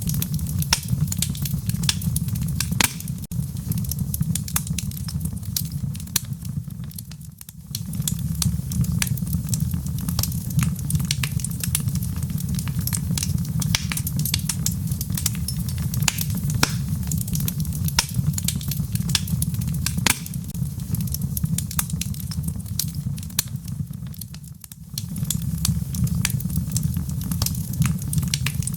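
Wood fire burning in a fireplace, crackling with frequent irregular sharp pops over a steady low rumble that dips twice for a moment.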